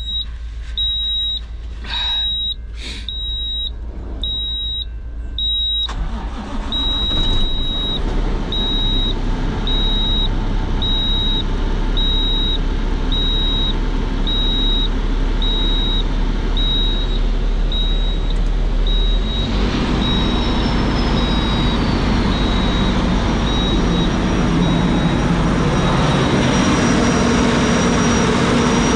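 Cummins ISX CM2350 diesel engine starting about six seconds in and then running steadily at idle, on its first start after an engine wiring-harness replacement. A dash warning buzzer beeps steadily over it until near the end. The engine grows louder from about twenty seconds in.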